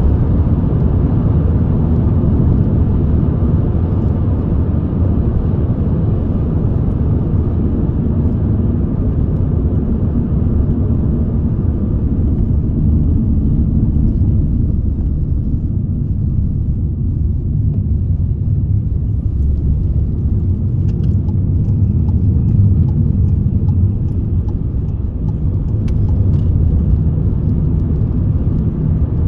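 Steady low rumble of car road and engine noise heard from inside the moving car's cabin, with the higher hiss thinning out about halfway through.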